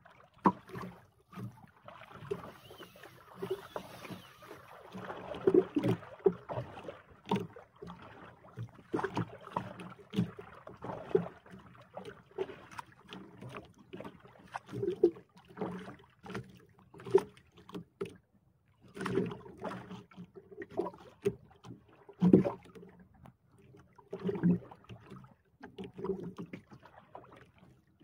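Water slapping against the hull of a small outrigger boat at sea, with many irregular knocks and thumps.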